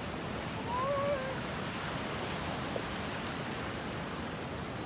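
Steady wash of surf breaking on the beach, with a brief wavering call about a second in.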